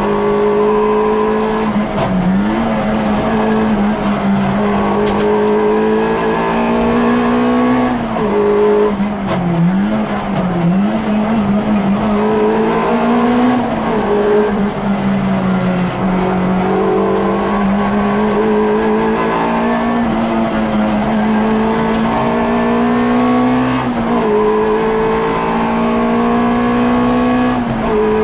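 Peugeot 106 rally car's four-cylinder engine heard from inside the cabin at full stage pace: the revs climb through each gear and drop sharply at every shift, with quick dips and blips as it brakes and downshifts into bends, over and over.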